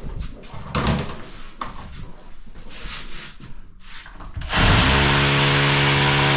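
A few light handling clicks, then about four and a half seconds in, a rotary hammer drill starts up and runs steadily, drilling into concrete.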